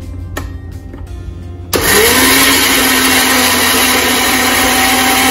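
Countertop blender switched on a little under two seconds in: the motor spins up with a rising hum, then runs steadily at full speed, blending a yogurt, mayonnaise and fresh herb chutney.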